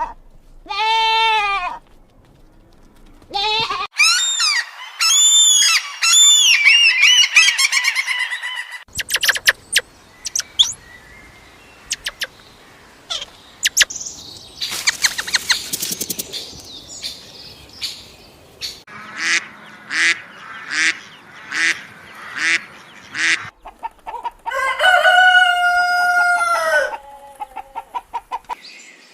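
A succession of animal calls: short calls repeated about twice a second, like a hen clucking, followed near the end by one long, drawn-out rooster crow. Before these come other chirping calls and a stretch of clicks and noise.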